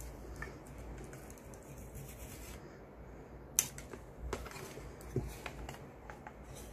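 Utility knife scraping and cutting along the edge of a cigar box, a faint scratchy rasp, followed by a few light clicks and taps as the knife is put down and the box handled.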